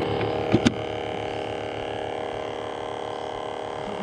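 Small boat engine running steadily under way: an even, many-toned hum. Two short knocks come just after half a second in.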